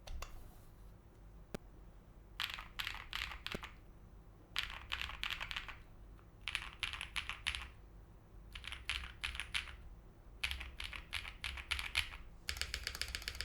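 Typing on a Jelly Epoch 75% mechanical keyboard with tactile Holy Panda R3 switches in a polycarbonate plate, under GMK Botanical keycaps. The keystrokes come in quick bursts of about a second with short pauses between, then a faster, even run of keypresses near the end.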